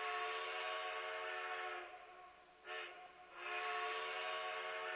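Narrow-gauge K36 steam locomotive's chime whistle sounding: one long blast of about two seconds, a short toot, then another long blast.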